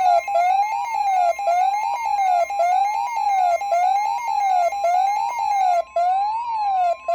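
Electronic alarm tone sweeping up and down in pitch about once a second, like a siren wail, over a faint steady higher tone. It cuts out briefly twice near the end.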